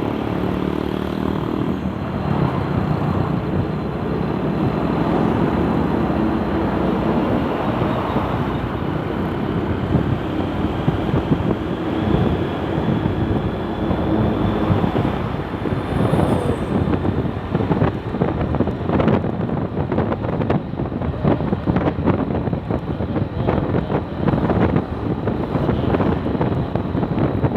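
Road traffic on a busy main road, vehicles passing with a steady engine and tyre hum. Strong wind buffets the microphone in rapid, uneven gusts, most of all in the last third.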